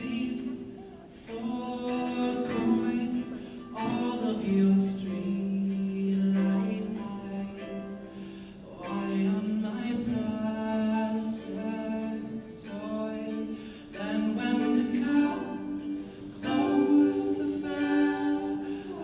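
Live singing with little or no accompaniment, in phrases with long held notes and short breaks between them.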